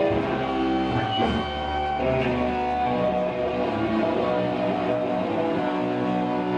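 Hardcore punk band playing live, with electric guitar chords ringing out and changing every second or so.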